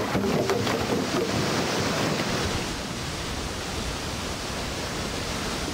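Water rushing through the flume of a timber driving dam just tripped open, a steady heavy rush with a few knocks in the first second or so.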